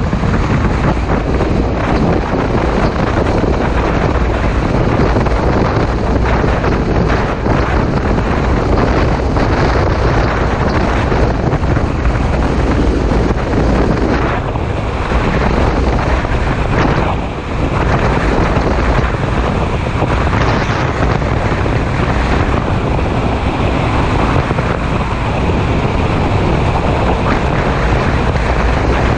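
Wind rushing over the microphone while riding at speed, over the steady drone of a 2015 Yamaha FJ-09's three-cylinder engine. The noise dips briefly about halfway through.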